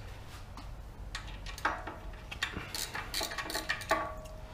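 Steel hand tools clinking: a socket and extension being handled and fitted for a ratchet, several separate metal clinks, some of them briefly ringing, the loudest about four seconds in.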